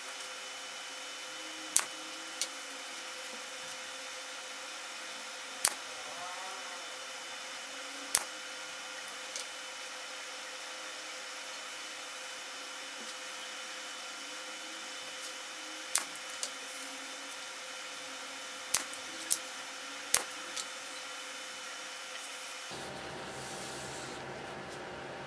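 Sharp wooden taps, about ten in small clusters, as molding strips are set and pressed onto a birch cabinet door panel, over a steady workshop machine hiss with a faint hum.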